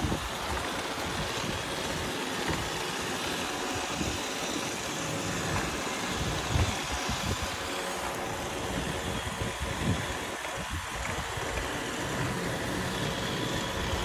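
Several robot vacuums running together among balloons: a steady motor and brush whir with a faint constant whine. Uneven low rumbling sits underneath.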